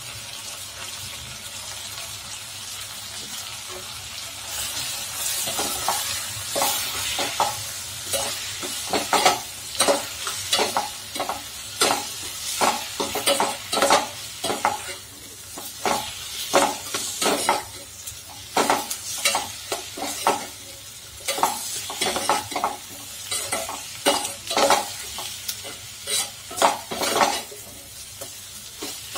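A long steel spoon stirs and scrapes vegetables frying in oil in a stainless steel pot, clinking against the pot in quick, irregular strokes over a steady sizzle. The sizzle grows a few seconds in and the scraping starts soon after, as the spice powders are stirred through.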